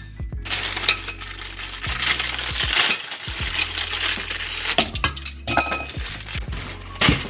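Hard household items clinking and knocking as they are handled and set down, with a brief ringing clink about five and a half seconds in.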